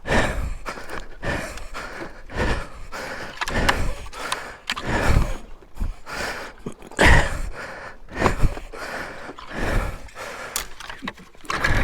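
A person breathing hard and grunting with exertion while wrestling a heavy dirt bike, with irregular thumps and scuffs every second or two.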